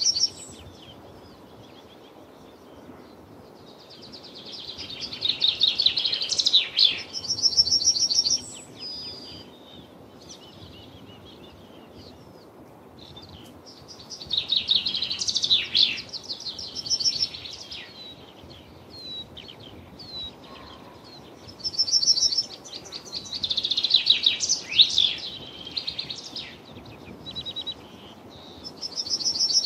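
Birds singing: bursts of fast, high trilling and warbling song come every several seconds, with a faint steady hiss between them.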